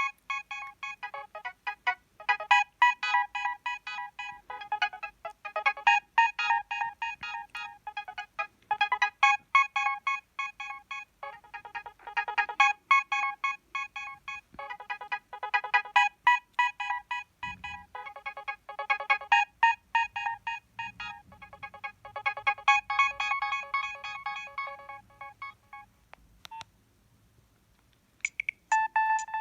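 Preloaded Nokia 3120 mobile-phone ringtone playing a fast melody of short repeated synth notes. It stops about 26 seconds in. After a click and a brief pause, a new run of short beeps starts near the end.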